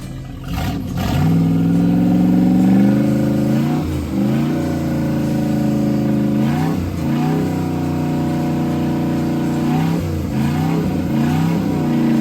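Freshly rebuilt carbureted Mercruiser 5.7 L 350 V8 marine engine running. It revs up about a second in and then holds speed, with the revs dipping briefly and recovering several times. The engine runs smoothly after an overhaul that cured its knocking.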